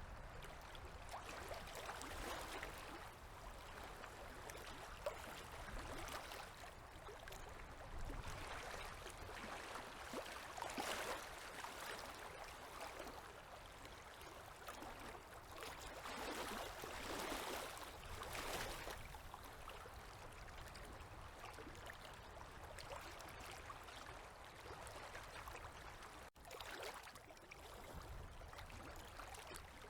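Small river waves lapping at the bank: faint, even water noise that swells and falls every few seconds.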